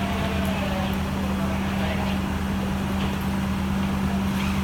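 Fire engine running steadily at a fixed speed, a constant low hum, with faint voices in the background.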